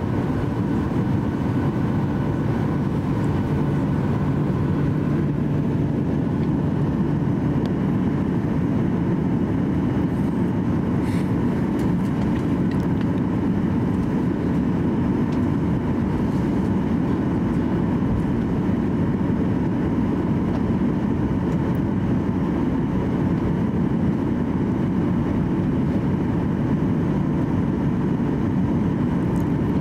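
Cabin noise inside a Boeing 737-800 taxiing: its CFM56 engines at taxi power and the air-conditioning make a steady drone with a low hum.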